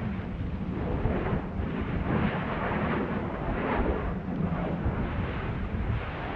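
Stromboli volcano's active crater heard from its rim: a continuous low rushing rumble of venting gas that rises and falls in irregular surges every second or so.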